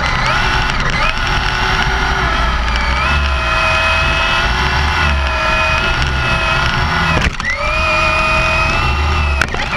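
Traxxas Slash RC car's electric motor and drivetrain whining at speed, heard from inside the car. The pitch drops briefly about seven seconds in, then climbs back, over a low rumble.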